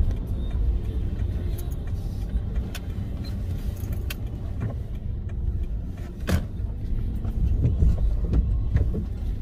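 Low, steady rumble of a car's engine and tyres heard from inside the cabin while driving slowly, with a few faint clicks and one sharp knock about six seconds in.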